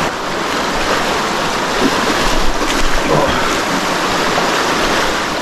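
Rushing river water, a loud steady hiss.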